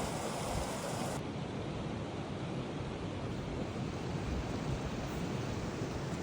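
Steady rush of water falling down a small waterfall. About a second in the sound abruptly turns duller, its bright hiss dropping away and a low rumble taking over.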